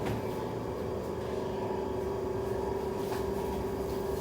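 A floured chicken piece frying in hot oil, sizzling steadily, over a constant low hum.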